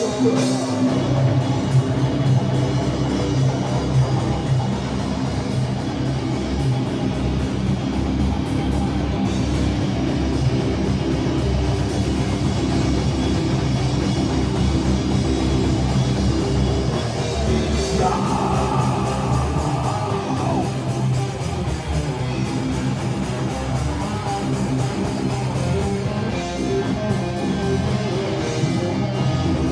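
A metal band playing live, an instrumental passage with electric guitars and drum kit and no vocals; a higher guitar line stands out for a few seconds just past the middle.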